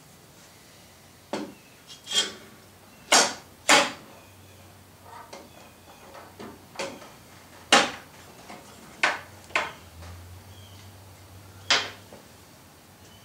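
Hand tools being picked up and set down on a workbench: about eight irregular sharp knocks and clacks, with quieter handling noise between.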